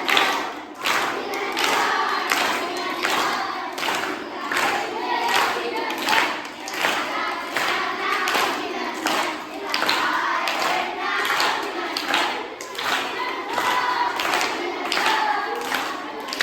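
A group of children singing a birthday song together in chorus, clapping in time to a steady beat.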